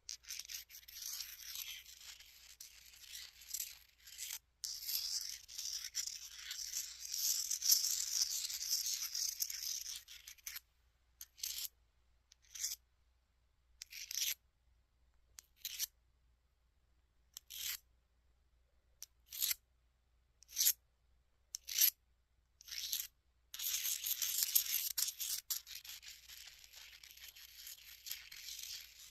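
Jasper stone tools rubbed and scraped close to the microphone: a continuous scratchy rubbing, then a run of single short scrapes about a second apart, then steady rubbing again near the end.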